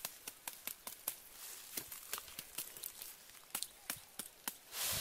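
Dry leaf litter and twigs crackling and snapping underfoot and under handling: many irregular sharp clicks, with a louder rustle near the end.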